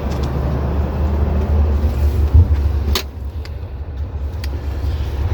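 Steady rumble of city street traffic, with a sharp click about three seconds in and a few fainter ticks after it.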